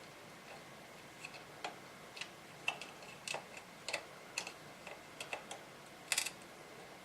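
Irregular light clicks and ticks of small screw hardware being handled, washers and nuts going onto a radio's control shafts, with a quick cluster of clicks about six seconds in.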